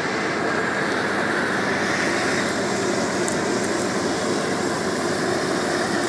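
Claas Lexion 670 combine harvester working past at close range, cutting and threshing wheat: a loud, steady running noise.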